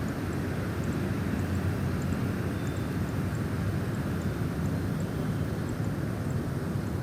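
Steady low rumble of snowstorm wind, with faint high ticks now and then.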